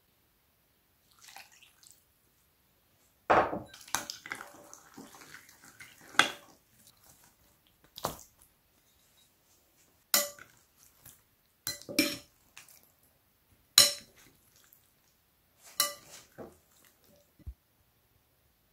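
Metal spoon clinking against a glass bowl while grilled eggplant slices are tossed in a wet marinade: a longer wet stirring noise about three seconds in, then about seven sharp clinks a second or two apart.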